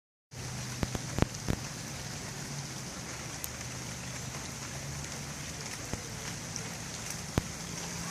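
Steady rain falling, an even hiss, with a few sharper taps of single drops: three in the first second and a half, and a couple more later.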